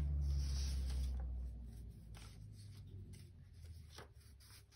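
Hand pressing and rubbing a paper cut-out flat onto a journal page: a low rubbing rumble for about the first second and a half, then light paper rustles and small taps.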